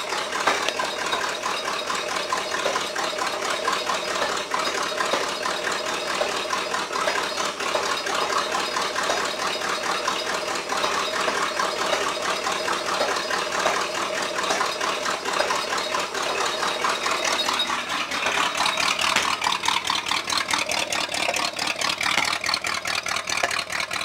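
Chevrolet El Camino engine running at idle, just started after a no-start, spitting as it runs: the owner says the ignition timing is definitely off.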